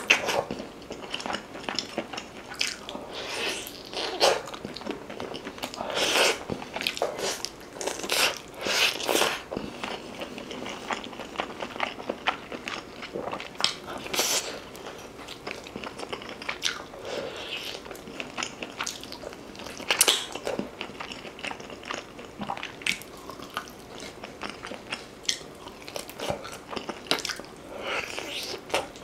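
Close-miked eating sounds: biting, tearing and chewing tender braised beef off a short rib bone held in the hands, with many irregular sharp bites and mouth noises.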